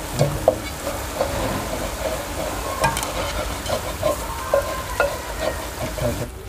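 Pakoras deep-frying in hot oil in an aluminium pot: a steady sizzle with many sharp crackling pops, as a wire skimmer stirs through the oil and lifts the cooked fritters out.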